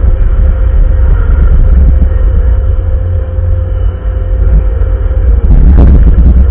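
Bobcat wheel loader's diesel engine running under load with a heavy low rumble and a steady whine. A brief louder scrape or clunk comes near the end.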